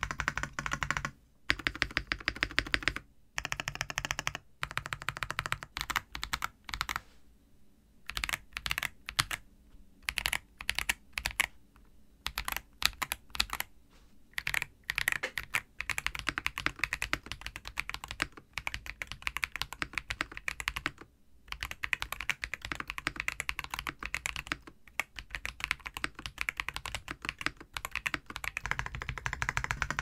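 Typing on a Zuoya GMK67 mechanical keyboard fitted with unlubricated Holy Panda V2 tactile switches: fast runs of key clacks, broken by a few short pauses. Without lube these switches sound a bit scratchy.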